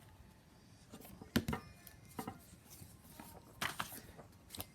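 A few scattered knocks and clicks of objects being handled while someone rummages for a paper. The sharpest knock comes about a second and a half in.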